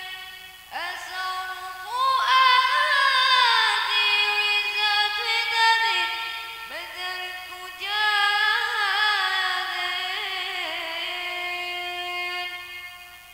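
A woman singing a melodic song in long phrases with sliding, wavering, ornamented notes, each phrase swooping up into its first note.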